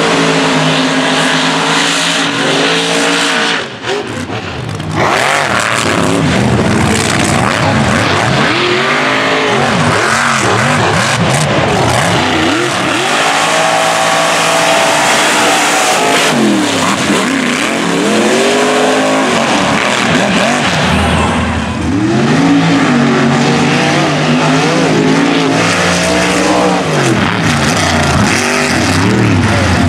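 Mega truck engines revving hard under full throttle, their pitch climbing and dropping again and again as the trucks race and slide on dirt.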